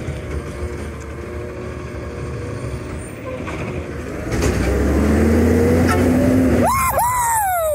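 Garbage truck engine running, rising to a louder rumble about four seconds in. Near the end a loud pitched sound jumps up and then slides slowly down in pitch.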